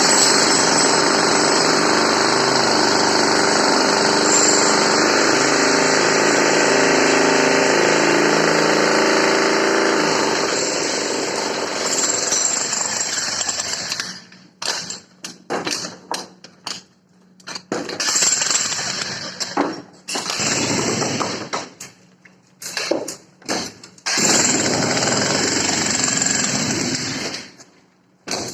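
Jackhammer hammering steadily for about half the time, then run in a string of short bursts with brief pauses between them.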